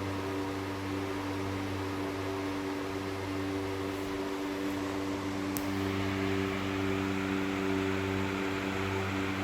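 1964-era Toshiba CT-40T ceiling fan running at its fixed high speed: a steady motor hum under the rush of air from its 40 cm blades, with a single light tick about five and a half seconds in.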